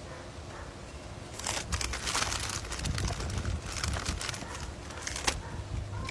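Food packaging crinkling and rustling close to the microphone, a dense crackle that starts about a second and a half in and stops with a final sharp crack about five seconds in.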